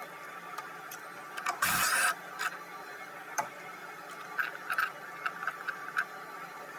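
Hand ratchet clicking in short runs as it loosens a 13 mm nut on a stud at the battery tray, with a louder clatter of tool or metal just under two seconds in and a quick run of small clicks near the end.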